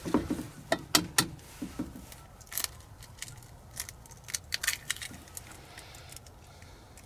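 An egg tapped against the rim of a stainless steel bowl and cracked open: three sharp clicks about a second in, a louder one a little later, then light scattered ticks.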